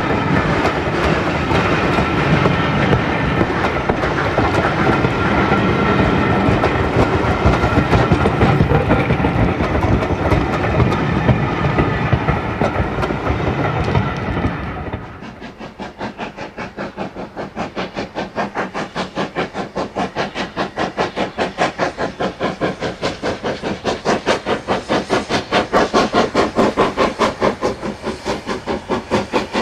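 Passenger coaches rolling past close by, a heavy rumble with the wheels clattering over the rail joints, which cuts off sharply about halfway through. Then a steam locomotive working a train: a steady chuffing exhaust beat, about three beats a second, growing louder.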